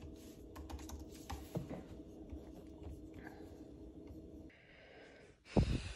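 Single-serve coffee maker humming steadily as it brews, over scattered light clicks; the hum cuts off about four and a half seconds in as the brew finishes, and a dull thump follows near the end.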